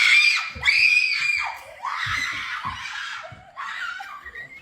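High-pitched screaming cries that waver in pitch, loudest at the start and trailing off toward the end.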